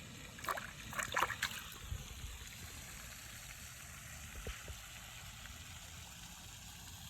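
Water splashing and trickling: a few short splashes in the first second and a half, then a faint steady hiss.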